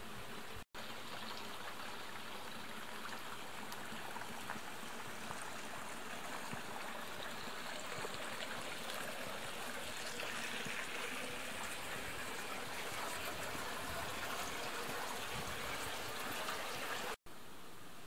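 Steady running water of a small stream flowing along a stone-lined channel. It grows a little louder about halfway through.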